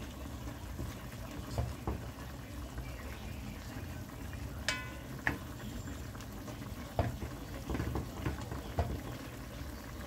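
A metal spoon stirs chicken pieces in a metal pot on the stove, clinking against the pot now and then, with one ringing clink about halfway through. Under it, the chicken bubbles steadily as it cooks in its own juices.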